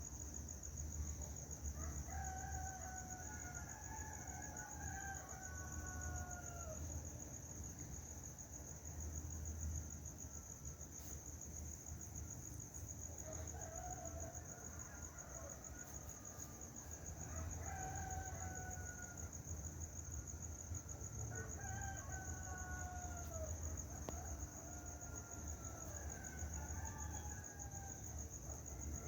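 Roosters crowing again and again, each crow a second or two long and falling in pitch at the end, over a steady high-pitched insect trill.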